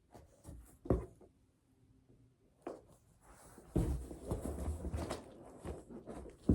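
Heavy card binders being handled and set down in a box: a couple of dull thuds, then scraping and rustling as they are shifted, and a sharp knock near the end.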